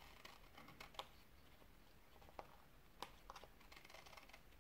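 Near silence, with a few faint taps and rustles of paper pattern pieces being handled on a table: about a second in, once near the middle and again about three seconds in.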